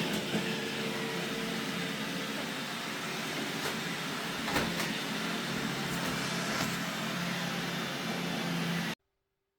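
Robot vacuum running steadily: motor and brush whir with a low hum and a few sharp clicks as it picks up debris or bumps into things. The sound cuts off abruptly near the end.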